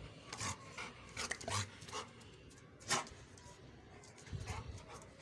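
Dog giving several short, sharp vocal sounds, the loudest about three seconds in, inviting play. A few soft low thumps follow near the end.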